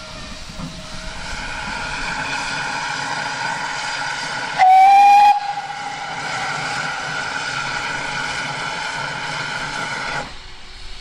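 GWR steam tank locomotive working a passenger train past, with a steady hiss and running sound, and one short, loud blast on its steam whistle about halfway through.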